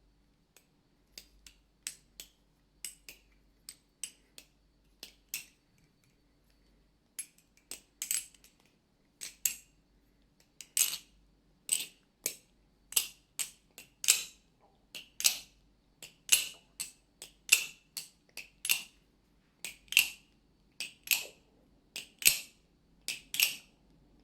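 Dry, unoiled balisong (butterfly knife) being flipped, its handles and blade clacking metal on metal as it opens and closes. The clacks start light and sparse, then come sharp and ringing about once a second, often in quick pairs: the sound of the pivots and latch with no oil in them.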